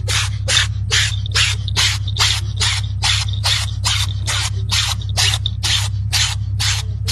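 A cat sneezing over and over in quick succession, short hissy sneezes at about three a second, evenly spaced, over a steady low hum.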